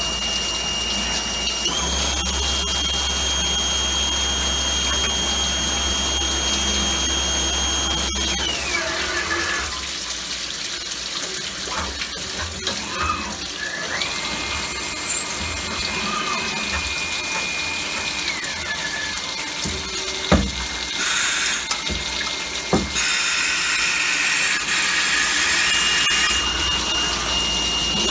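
Star SST-16 CNC Swiss-type lathe cutting stainless steel tubing under flood coolant, with coolant splashing and hissing throughout. A high machine whine steps up in pitch about two seconds in and glides down after about eight seconds, and a second whine follows later. A few sharp knocks and a louder stretch of hiss come near the end.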